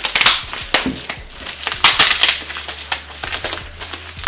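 Keyboard box packaging being opened by hand: irregular crinkling and handling noises, loudest near the start and again about two seconds in.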